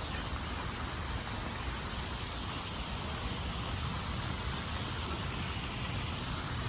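Steady rushing outdoor noise with a low rumble underneath and no distinct events.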